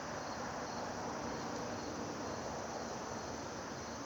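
Steady outdoor background of insects singing: a constant high, even hum over a faint low rumble, with no distinct bird calls.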